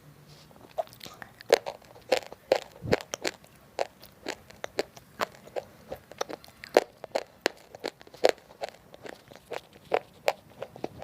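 Someone chewing roasted multani mitti (Fuller's earth) chips, with a quick run of sharp, dry crunches at about three a second.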